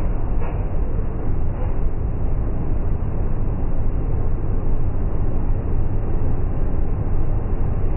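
Caterpillar 374D excavator's diesel engine (Cat C15) running steadily, a low even rumble.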